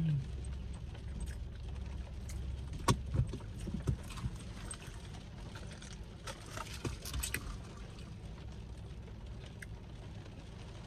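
Plastic fork cutting pancakes and clicking against a plastic takeout tray, with chewing: a few sharp clicks around three to four seconds in and a cluster around six to seven seconds. A steady low rumble of the car's interior lies underneath.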